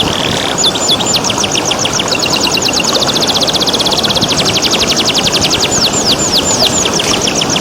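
Domestic canary singing: runs of fast downward-sweeping whistles, then a rapid trill of many notes a second from about three to six seconds in, before the sweeping whistles return. A steady rush of flowing water runs underneath.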